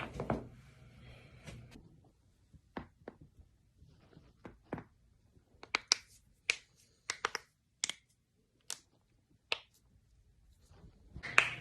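Human joints cracking: a string of sharp, separate pops at irregular intervals, closer together in the second half, with quiet gaps between.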